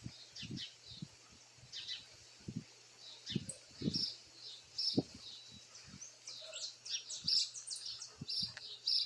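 Birds chirping, short high chirps and calls repeating throughout, with soft low thumps now and then.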